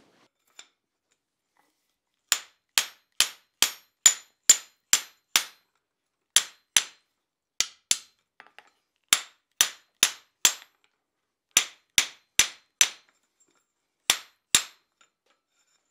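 Blacksmith's hammer striking a steel monkey tool fitted over a hot iron tenon, setting the tenon's shoulder square against the anvil. About twenty sharp metallic blows come in quick runs of two to four with short pauses, starting about two seconds in.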